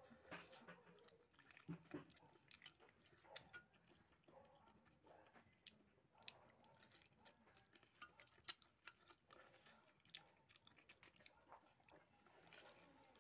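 Faint chewing and biting of pork hock curry eaten by hand, with many scattered short wet clicks.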